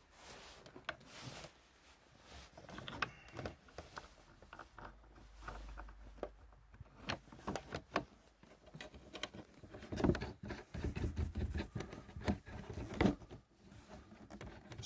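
Scattered clicks, knocks and rubbing of plastic as a snowmobile's windshield and console panel are handled and worked into place. The clicks come thicker and louder about two-thirds of the way through.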